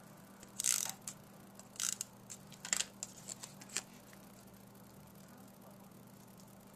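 Cardstock and paper die-cut pieces rustling and scraping under the fingers as they are handled and pressed onto a card, in four short rustles about a second apart.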